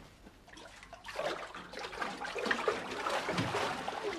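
Water splashing and trickling in a bathtub as a young seal swims in it, starting about a second in.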